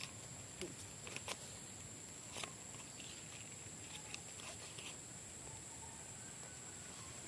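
Quiet rural outdoor ambience: a steady high-pitched insect drone, with a few sharp faint clicks about a second in and again near two and a half seconds.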